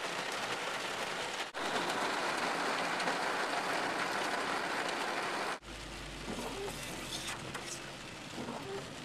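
Heavy rain pouring down, a dense steady hiss. About two-thirds of the way in it cuts abruptly to quieter rain heard from inside a car, with a low steady hum underneath.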